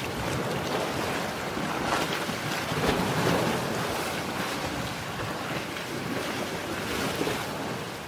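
Ocean surf: waves washing in as a continuous rush that swells and eases, with wind noise on the microphone. The sound starts to fade out near the end.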